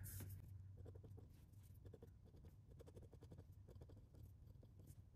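Faint scratching of a glass dip pen's nib on paper: a run of short, quick strokes of writing and hatching.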